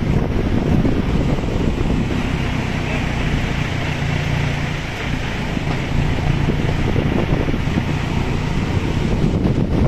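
Steady rushing road and wind noise from a moving vehicle, with a low engine hum.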